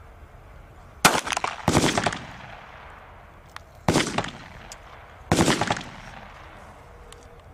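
Four semi-automatic pistol shots, each with a short rolling echo: two in quick succession about a second in, then two more a second and a half apart.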